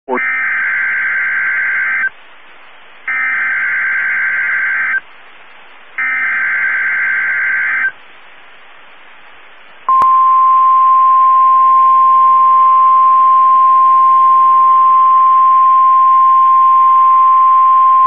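NOAA Weather Radio emergency alert: the SAME digital header sent three times, each burst about two seconds of harsh data tones, with about a second of radio hiss between. About ten seconds in, after a click, a single steady 1050 Hz warning alarm tone starts and holds to the end. Together they announce a severe thunderstorm watch being issued.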